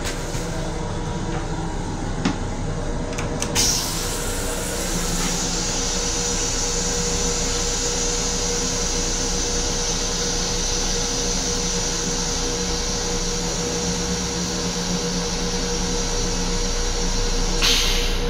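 Steady running noise of an M7 commuter railcar heard inside its restroom: a constant hum and hiss with a steady mid-pitched tone. A short louder rush comes about three and a half seconds in.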